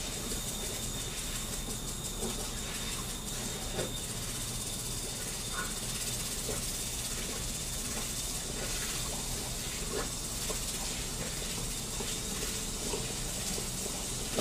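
Lawn sprinkler spraying a steady hissing jet of water, with a few small splashes and clicks as a dog bites at the spray.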